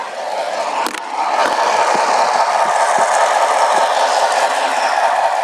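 Model train running on the layout's track: a steady rattling rolling noise with small clicks, getting louder about a second in.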